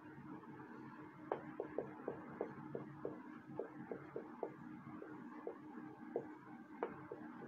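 A marker pen writing on a whiteboard: short, irregular strokes and taps, a few each second, as letters are drawn.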